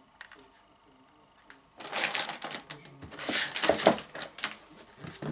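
Foam packaging insert and cardboard graphics-card box being handled. About two seconds in, a loud run of scraping and rustling with sharp clicks begins, then tapers near the end.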